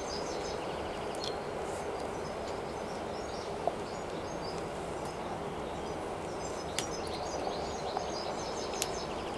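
Steady outdoor background noise with faint, scattered bird chirps and a few small clicks.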